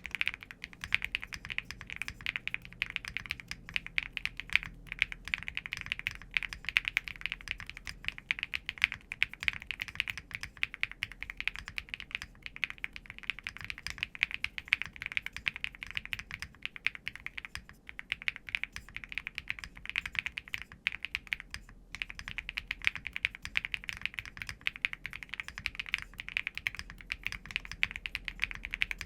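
Fast continuous typing on a Qwertykeys QK80 Mk2 mechanical keyboard with stock HMX Purple Dawn linear switches, PBT keycaps, lubed stabilisers, PC plate and PE foam: a rapid stream of deep, poppy keystroke clacks with a few short pauses.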